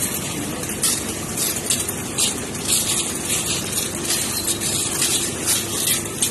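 Concrete mixer running steadily, with irregular scrapes and crunches of shovels digging into sand and crushed stone.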